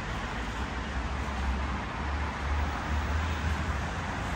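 Steady city street traffic noise with a low rumble underneath.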